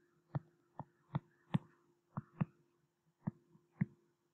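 A stylus tapping on a tablet or touchscreen during handwriting: about eight sharp, irregularly spaced taps as each pen stroke touches down, over a faint steady hum.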